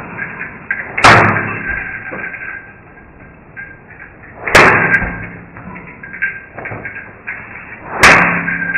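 Three loud, heavy bangs about three and a half seconds apart, each dying away over about a second, over a faint steady background hum.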